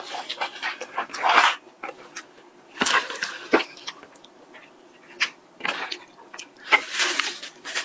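Close-miked eating sounds: chewing and mouth noises, with a disposable plastic glove crinkling as food is picked up and torn apart, in irregular bursts.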